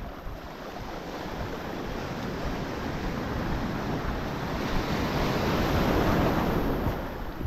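Ocean surf on a choppy sea: a wave washes in, swelling to its loudest about five to six seconds in, then easing off, with some wind buffeting the microphone.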